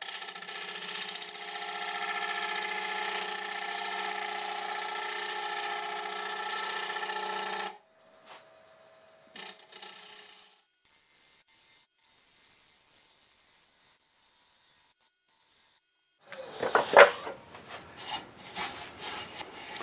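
Bowl gouge cutting the outside of a wooden bowl spinning on a lathe at about 870 RPM: a steady shaving hiss with a held multi-pitched hum under it, stopping abruptly about eight seconds in. Near the end come irregular scraping and rubbing sounds against the wood.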